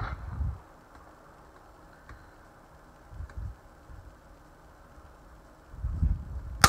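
A single sharp shot from a suppressed CZ 457 .22 LR bolt-action rifle near the end, preceded by a few low thumps.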